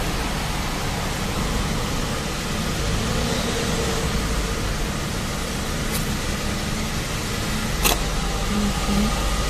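Steady rumble of vehicle engines and traffic noise, with a sharp click about six seconds in and a louder one about two seconds later.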